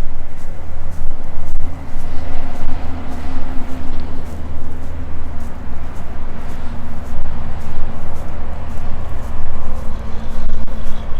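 A vehicle engine running steadily with a loud, low drone, the recording dropping out in short, choppy flickers throughout.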